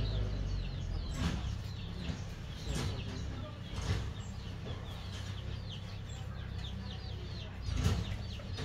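Chickens clucking, with rapid high falling chirps throughout and a few thumps, the loudest near the end.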